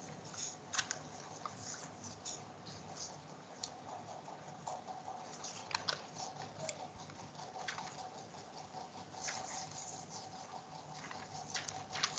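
Irregular light clicks and taps of keys or buttons being pressed, a few every second, over a faint steady hum.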